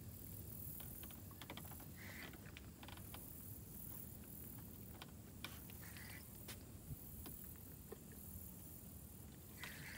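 Faint, irregular clicks and two short buzzes from a spinning reel and rod as a hooked fish pulls line against the drag, over a low wind rumble.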